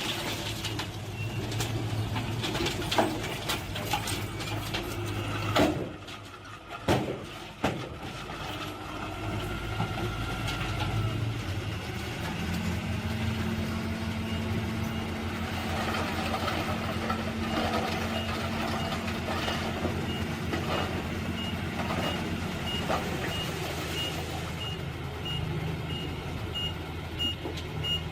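Dump truck engine running steadily, with a few sharp knocks in the first third. Through the second half the truck's reversing beeper sounds in evenly spaced beeps.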